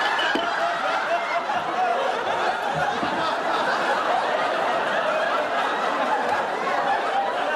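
Studio audience laughing, a long unbroken wave of laughter that holds steady throughout.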